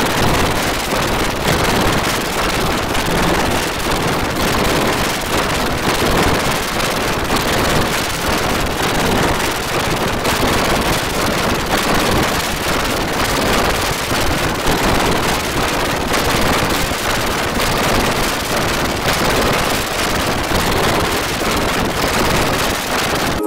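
Loud, harsh, static-like noise from an editing effect that has heavily distorted the soundtrack, with no recognisable music or voice left. It cuts in and cuts out abruptly.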